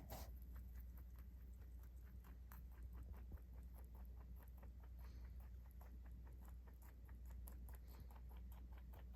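Pet rabbit chewing fresh cilantro: faint, quick, rhythmic crunching, about five bites a second, with a brief louder burst at the very start.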